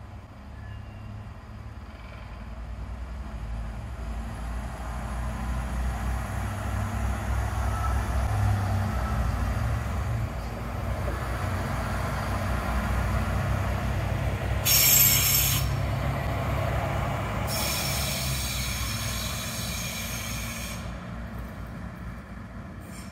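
A two-car Siemens Desiro Classic diesel railcar (DB class 642) pulls out and passes by, with its diesel engines running and its wheels rolling on the rails. The rumble builds over the first several seconds. Shrill wheel squeal comes briefly about 15 seconds in and again for a few seconds shortly after, and the sound then fades as the train moves away.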